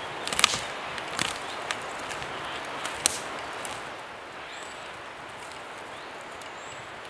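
A few sharp clicks and knocks over a steady outdoor hiss, the loudest just after the start and about three seconds in; the hiss drops a little about four seconds in.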